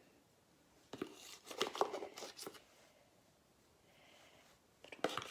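A spatula spreading thick sugar and egg-white icing over puff pastry: a run of short sticky scrapes and clicks about a second in, and another burst near the end.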